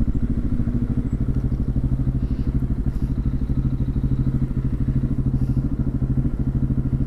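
KTM 690 single-cylinder motorcycle engine idling steadily, with an even, fast pulsing beat at a constant pitch.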